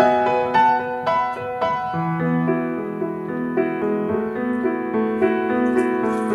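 Piano music, with lower notes joining about two seconds in. Near the end, water begins pouring from a jug into a ceramic mixing bowl.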